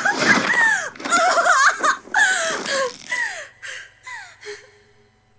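A high voice whimpering and wailing in a string of short cries that each fall in pitch, growing fainter and dying away.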